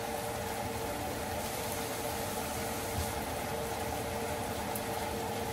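A steady fan-motor hum with hiss and a faint constant tone, unchanging throughout.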